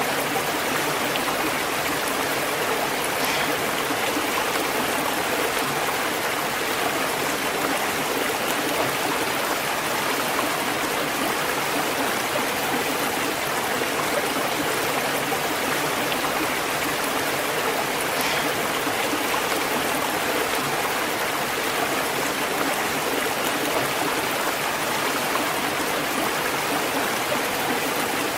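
Waterfall and rushing stream, a steady, even rush of falling and flowing water.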